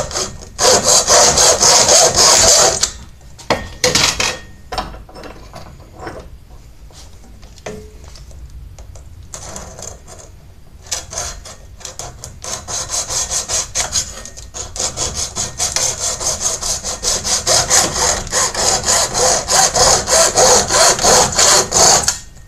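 Hand hacksaw cutting through the plastic housing of an LED light bulb in back-and-forth strokes. A burst of sawing gives way to a stretch of several seconds with only a few strokes. Steady, fast sawing resumes about eleven seconds in.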